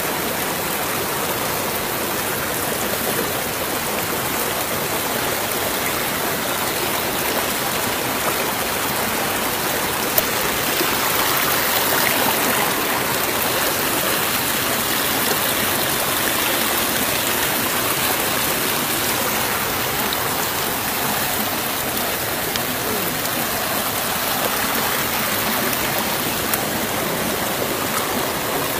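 Shallow river water flowing steadily over a stony bed, a little louder partway through, with a few faint clicks.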